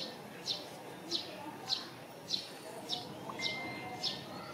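A bird chirping over and over: short, high notes that drop slightly in pitch, repeated very evenly about every 0.6 seconds.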